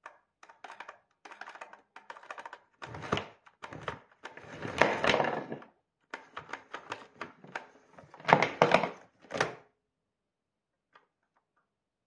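Power cord of a National Powerful & Compact canister vacuum cleaner being rewound into its cord reel in several bursts. The cable rattles and clatters as it is pulled in, with clicks between bursts. The last burst comes a little before ten seconds in, as the plug is drawn up to the body.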